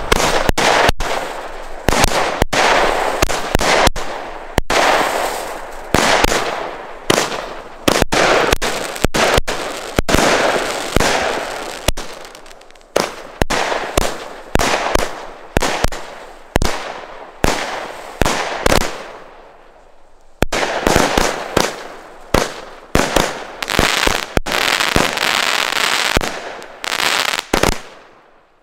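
Wolff 'Peking' 33-shot fireworks battery firing its shots in quick succession, each a sharp bang followed by a crackling tail. There is a short lull about two-thirds of the way through, and the firing dies away just before the end.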